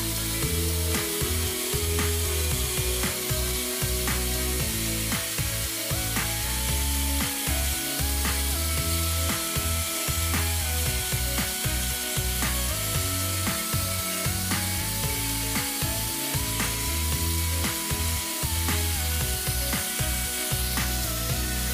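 Instrumental background music with a steady beat, a deep pulsing bass and a simple melody that steps between notes.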